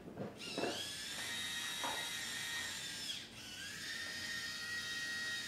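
Robot arm's elbow servo motor whining as it drives the forearm through its range, in two movements of about three seconds each with a brief pause between. The pitch rises as each movement starts, holds steady, and drops away as it stops.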